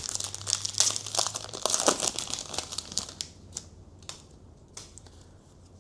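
Trading-card pack wrapper being torn open and crinkled. The dense crackle thins after about three seconds to a few faint rustles and ticks as the cards are handled.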